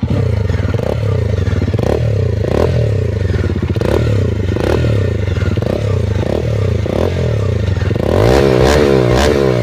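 Bajaj Dominar 250 single-cylinder engine revved in repeated short blips, with sharp pops from the exhaust and a bigger rev near the end. The exhaust is louder and pops because the silencer has been loosened so its packing slips.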